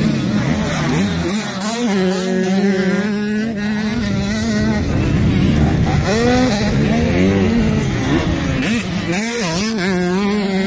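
Several motocross dirt bike engines running on a track, one holding a steady drone while others rev up and down in quick rising and falling sweeps as riders throttle on and off.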